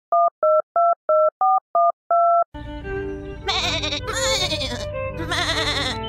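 Telephone keypad dialing: about seven quick two-tone beeps, the last one held longer. Music comes in about two and a half seconds in, with bright swooping sounds over it.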